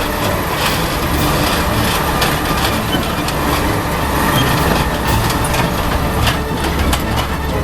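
Heavy diesel engine running steadily, with scattered metallic knocks and clanks over it.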